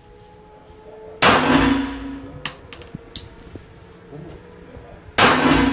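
Two 9mm pistol shots from a Glock 19, about four seconds apart, each a sharp crack with a short ringing echo. A couple of light clicks fall between them.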